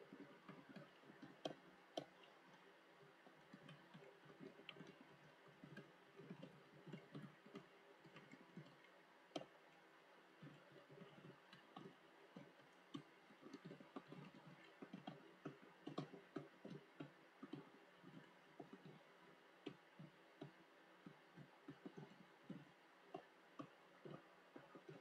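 Computer keyboard being typed on: faint, irregular key clicks in quick runs with short pauses between.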